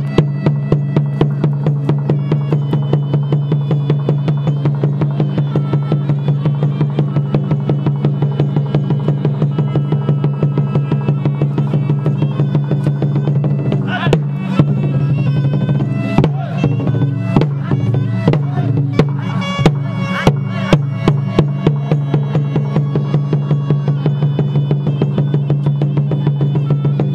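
Khmer pinpeat ensemble accompanying a shadow puppet dance: fast, steady drum and percussion strokes, about four a second, under a pitched melody line, with heavier drum accents midway.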